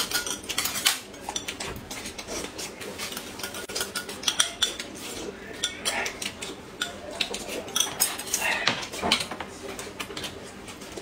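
Chopsticks and a spoon clicking and clinking against plates and a glass cup during a meal, with chewing sounds between the clicks.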